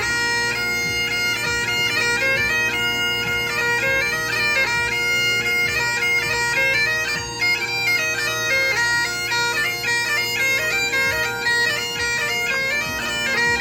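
Bagpipes playing a brisk tune of quickly changing notes over steady, unbroken drones.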